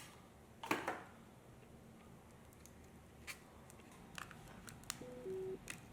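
Scattered small clicks and taps from handling PC components, the sharpest about a second in. Near the end comes a short two-note electronic beep that falls in pitch.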